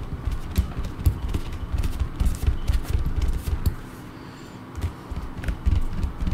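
Kneadable eraser rubbed quickly back and forth over drawing paper on a drawing board. It makes rapid, uneven low thumps and scrapes, with a short pause a little after halfway.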